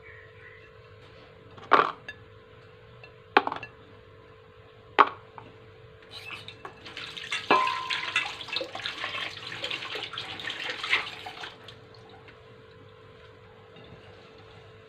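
Kitchenware being handled: three sharp knocks about two, three and a half and five seconds in, then a metal clink that rings briefly and a few seconds of dishes clattering with running water. A steady hum runs underneath.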